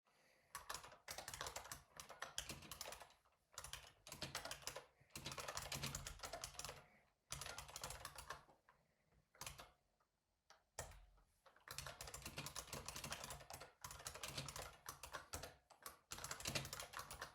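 Typing on a computer keyboard: rapid runs of key clicks in bursts of a few seconds, broken by short pauses and a longer gap around the middle.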